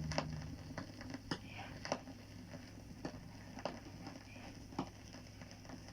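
Vinyl LP surface noise after the song ends: the last low note fades out in the first half second, then faint scattered clicks and pops from the stylus over a low steady hum. Some of the clicks recur about every 1.8 s, once per turn of a 33rpm record.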